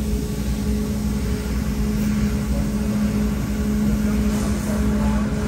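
Steady machine hum with one constant low tone over a low rumble, from an Amada Acies 2515 CNC punch/laser machine standing running.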